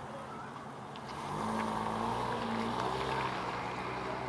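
A motor vehicle's engine running nearby, a steady hum that grows louder about a second in.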